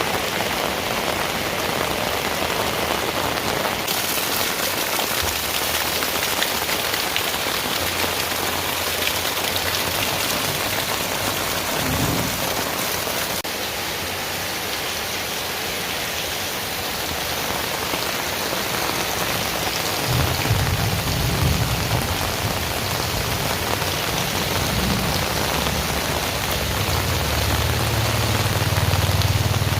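Heavy rain pouring steadily onto surfaces, a dense even hiss, with low rumbles of thunder welling up a few times, most strongly near the end.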